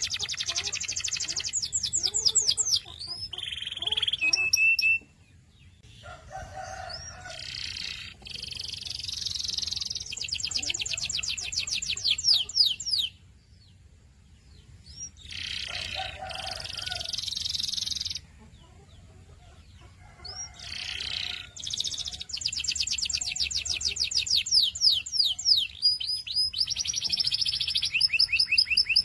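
Domestic canary singing: long rolls of fast, evenly repeated high notes, broken by a few short pauses.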